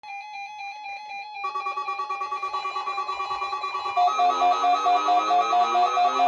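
Electronic alarm tones of an Emergency Alert System test, in quickly pulsing layers. More tones join about one and a half seconds in, and from about four seconds it gets louder, with repeated rising sweeps.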